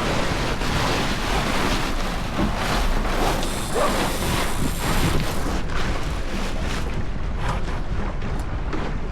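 Wind buffeting the microphone and water rushing past the hull of a Flying Scot sailboat under way, with repeated short buffets and knocks throughout.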